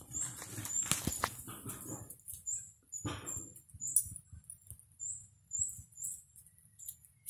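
Light rustling and scuffing of small dogs moving on a leaf-strewn path, with a sharp click about a second in, then a run of short, high chirps, about two a second, until near the end.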